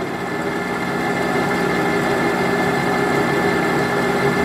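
Monarch metal lathe running with its chuck spinning: a steady mechanical hum with several held tones.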